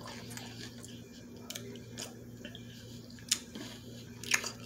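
Close-up mouth sounds of a person biting and chewing food, with a few sharp crunchy clicks, the loudest two near the end, over a steady low hum.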